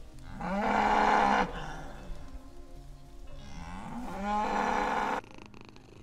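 Cattle mooing: two long moos, the first one louder, the second starting about three and a half seconds in.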